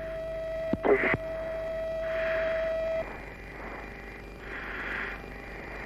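Mirage 2000 cockpit recording audio: a steady tone that cuts off about three seconds in, a short click near one second, and soft hissing puffs about every two and a half seconds from the pilot breathing through his oxygen mask.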